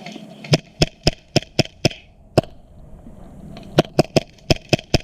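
Airsoft gun firing single shots in quick succession: a string of about seven sharp cracks, a pause of over a second, then about six more near the end.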